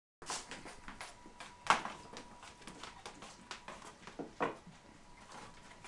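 Domestic pig grunting twice, loudest about a second and a half in, over a run of light clicks and knocks.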